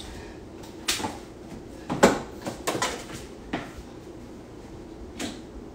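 Kitchen clatter: about half a dozen short knocks and clunks of kitchen work, the loudest about two seconds in, over a low steady background.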